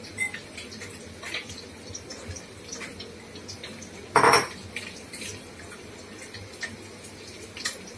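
Spatula stirring chopped onions in a pan of hot oil, with small clicks and scrapes of utensil on metal over a faint steady frying sizzle. A louder clatter of spatula against the pan comes about four seconds in.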